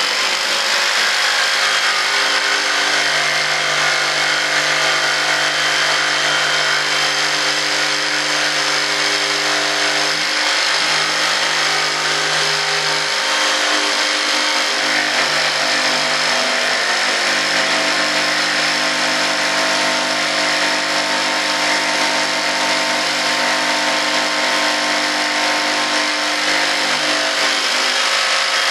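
Electric jigsaw running steadily as it trims the cured resin-and-fiberglass edges of a composite layup, the motor's even hum under the noise of the blade cutting.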